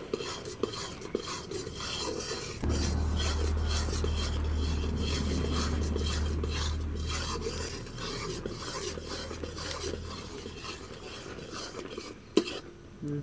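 Flat metal spatula stirring and scraping around an aluminium kadai of boiling sugar syrup, with quick repeated scrapes and clinks against the pan and the syrup bubbling. A steady low rumble comes in about two and a half seconds in and fades out around eight seconds.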